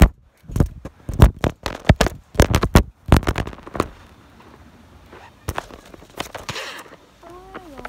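Phone handling noise: a quick run of knocks, bumps and rustles as the phone is jostled, for about four seconds, then much quieter. A short pitched sound that rises and falls comes near the end.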